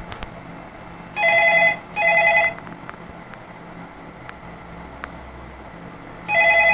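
Telephone on a PABX extension ringing with an electronic warbling ring in a double pattern: two short rings about a second in, then the next pair begins near the end. The incoming call shows that the extension port is working.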